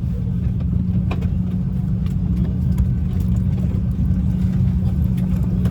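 Steady low drone in the cabin of a parked Airbus A330-300, with a few light clicks and faint voices of passengers in the background.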